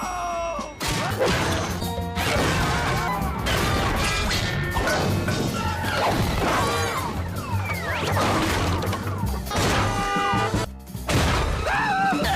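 Cartoon sound effects: a busy run of crashes and smashes with whacks, over music.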